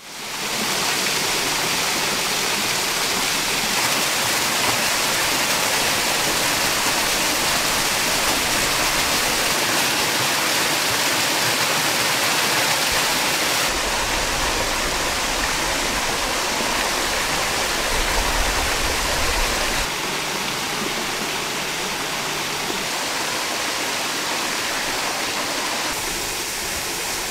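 Small waterfall spilling down a rock face into a pool: a steady rush of falling and splashing water that fades in at the start. A low rumble joins underneath for a few seconds midway, and the level drops slightly about two-thirds through.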